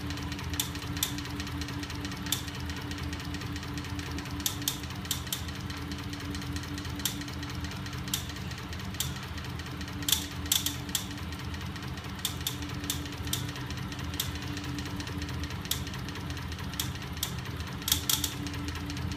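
Small 12-volt electric motors driving a benchtop magnetic linear engine prototype, its crankshafts and swinging arms spinning. There is a steady hum with irregular sharp clicks and ticks from the moving linkages.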